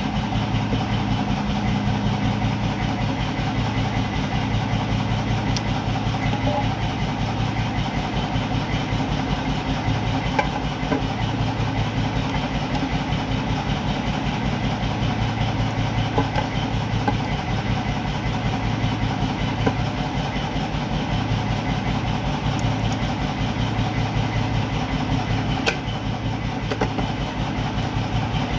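An engine running steadily at idle, a low even drone with a fast pulse, with a few light clicks over it.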